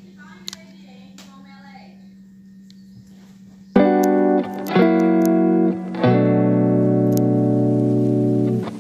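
Faint voices over a steady low hum, then about four seconds in, loud background music with plucked guitar chords starts, each chord ringing on before the next.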